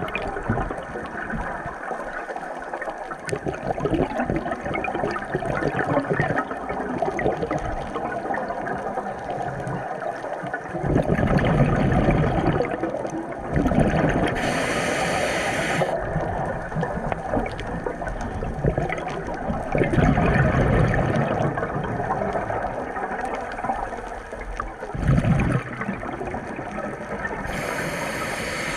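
Moving water splashing and gurgling, rising in several louder surges, with two short hissing bursts.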